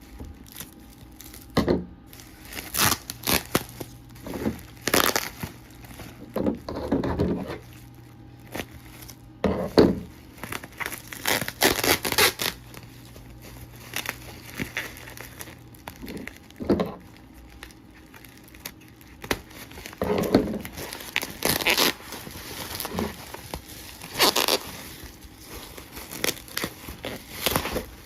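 Packaging being torn open and crinkled by hand: irregular rips and rustles of plastic and paper wrapping, coming in short bursts every second or two.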